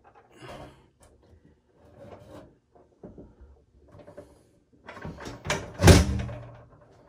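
Stainless steel drop-in sink being lowered onto a fresh bead of caulk and shifted into its countertop cutout: scattered light knocks and scrapes, then a louder clatter with a thud about six seconds in as it settles into place.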